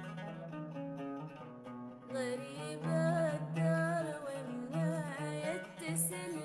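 Oud playing a plucked melody in a slow Arabic song. About two seconds in, a voice joins and sings a long, ornamented line with vibrato over the oud.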